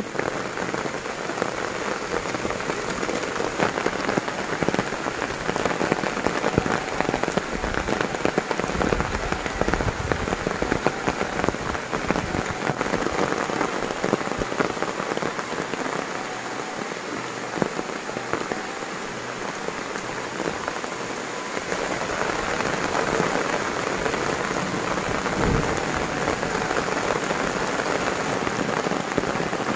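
Heavy rain falling steadily, a dense patter of drops on the ground, leaves and pond water, with a few low thumps along the way.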